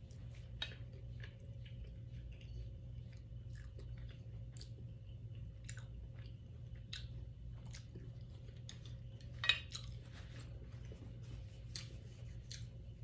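A person chewing food, with irregular short clicks and smacks over a low steady hum; one louder click about nine and a half seconds in.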